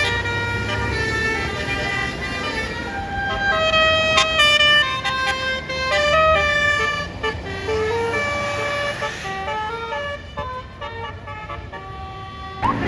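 Bus basuri telolet horn playing a melody of stepped notes, over the low rumble of the bus engine. The notes fade somewhat toward the end.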